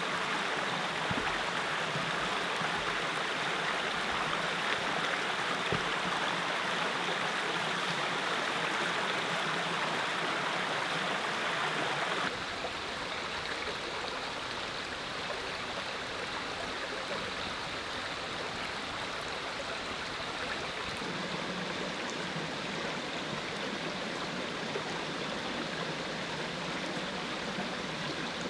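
Small mountain creek running over rocks: a steady rush of flowing water, stepping down a little quieter about twelve seconds in.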